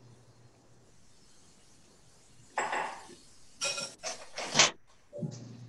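Metal spoon scraping and clinking against a sauté pan of cooking shrimp: quiet at first, then a scrape about halfway through and a quick run of ringing clinks, the loudest near the end.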